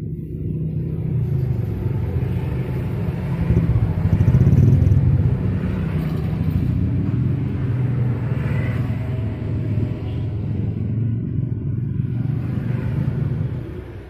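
A motor vehicle's engine running close by: a low, steady rumble that swells about four to five seconds in and dies away at the end.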